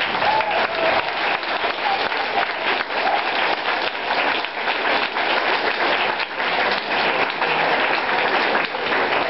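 Audience applauding steadily, a dense patter of clapping hands with a few voices calling out in the crowd.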